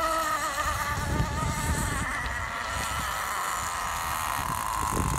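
CMB .45 glow-fuel nitro engine of an RC outrigger boat running at speed in the distance, a high thin buzz. Its pitch wavers for the first couple of seconds, then holds steadier and slowly drops. Wind rumbles on the microphone underneath.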